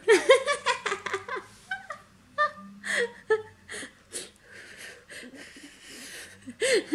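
A small child and a woman laughing: a fast run of laughs in the first second and a half, then scattered breathy giggles.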